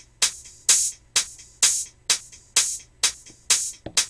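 Looped drum-machine percussion from a Native Instruments Maschine pattern: a crisp, high, hi-hat-like hit on every beat, about two a second, with no kick or bass under it.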